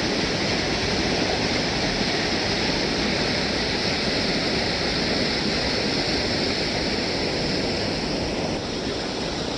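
Steady rushing noise with no distinct events, dropping slightly in level near the end.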